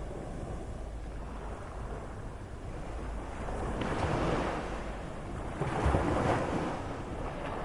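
Moderate sea surf: waves washing and breaking on the shore over a steady rush of water, with two waves swelling louder about four and six seconds in, the second the loudest.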